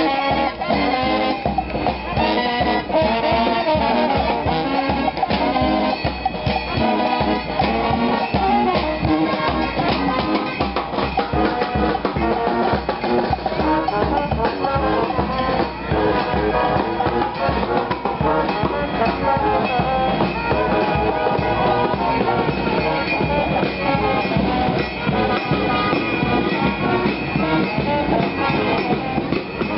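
Street brass band playing loudly without a break.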